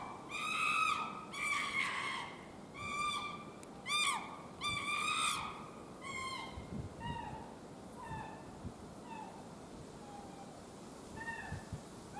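A chimpanzee giving a run of short, high-pitched, whimper-like calls, each dropping in pitch at its end. The calls come loud and close together for about six seconds, then fainter and further apart.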